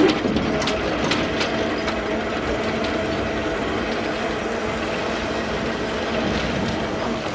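Large motor-driven steel prison gate in motion: a steady mechanical running sound with a held whine, and a few sharp clicks near the start.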